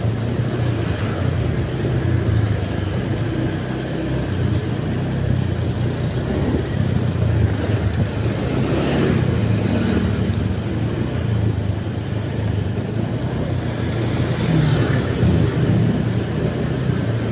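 Motor vehicle on the move: a steady low engine hum with road noise.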